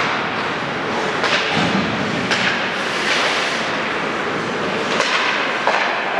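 Ice hockey play on the rink: skate blades scraping and hissing across the ice, with a few sharp clacks of sticks and puck.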